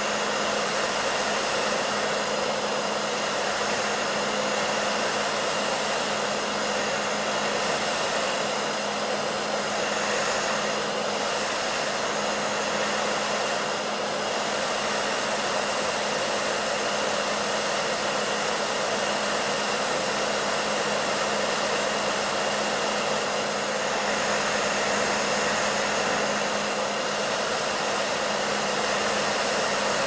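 Hair dryer running steadily: an unbroken rush of blown air with a steady low motor hum underneath.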